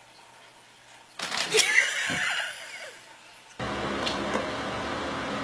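Quiet, then about a second in a sudden loud outburst of a person's startled shriek and laughter, lasting about two seconds. A steady hum of room noise starts abruptly later on.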